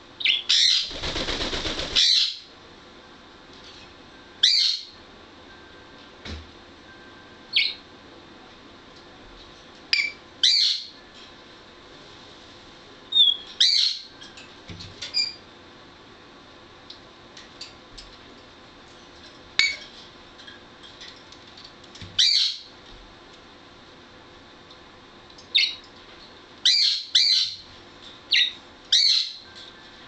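African grey parrot giving short, high chirps and whistles every few seconds, several in quick succession near the end, with a burst of noise about a second and a half long near the start.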